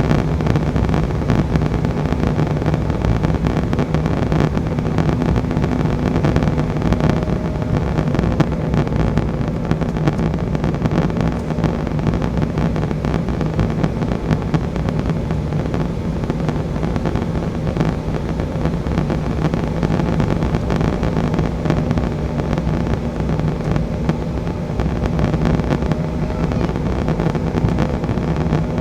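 Embraer E175 jet on approach: a steady rush of airflow and engine noise from its twin turbofans, with a low hum underneath that does not change.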